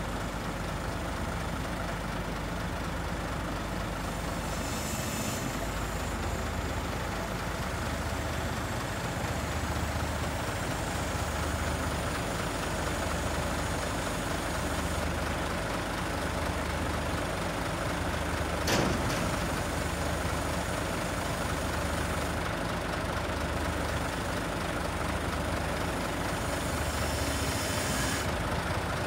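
Scania truck's diesel engine running steadily with a low throb that pulses about once a second, powering the hydraulics of its Hiab 220-5 B crane as the boom is folded. A single sharp clack about two-thirds of the way through.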